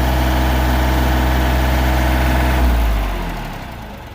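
John Deere 3025E compact tractor's three-cylinder diesel engine running steadily just after starting, now that its loose main battery cable nuts have been tightened. Its sound fades away about three seconds in.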